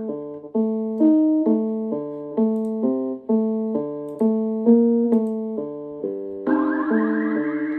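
Electric-piano-style chords played on a Native Instruments Maschine MK2 groovebox, a new chord struck about twice a second in a looping hip-hop progression. About two-thirds of the way through, a brighter, buzzier layer joins over the chords.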